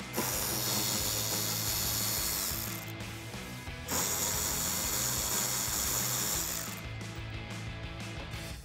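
Cordless electric ratchet running in two bursts of about three seconds each, with a short pause between, spinning 8 mm screws out of a truck's plastic inner wheel-well liner.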